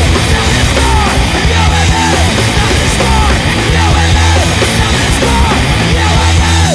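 Recorded hardcore punk song playing loud: distorted guitars, bass and drums at full tilt, with a short falling figure repeating in the guitar line.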